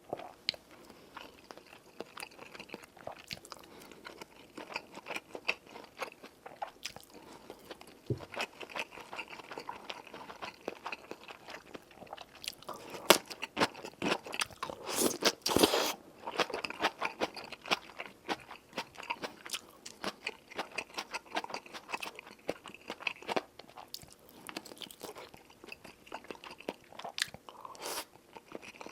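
Close-miked eating: steady chewing and crunching of food with wet mouth clicks, with a louder stretch of crunching about halfway through.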